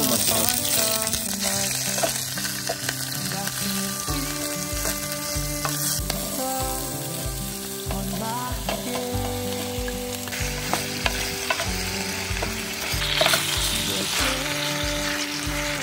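Food sizzling and frying in a hot pan. Background music with a steady beat plays underneath from about four seconds in.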